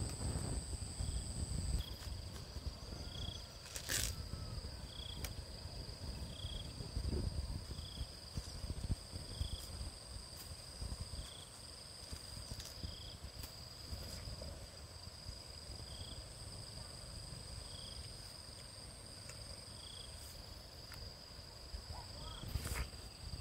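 Insects droning steadily in high, unbroken tones, with a short chirp repeating about every second and a half, over a low rumble. Sharp clicks sound about four seconds in and again near the end.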